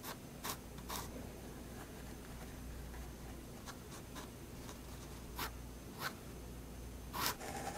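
Staedtler 0.3 mm pigment liner scratching across sketchbook paper in short, separate strokes, the loudest a little after seven seconds in.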